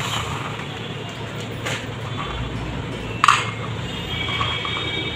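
Small biscuits clinking into a stainless steel bowl, with one louder ringing clink about three seconds in and a few light taps after it, over a steady low hum.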